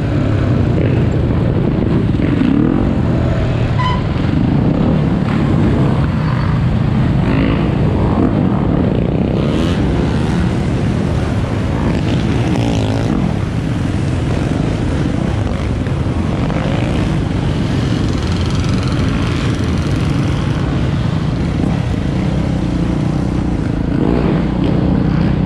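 Dirt bike and ATV engines running and revving as the riders ride in a group, the pitch rising and falling with the throttle.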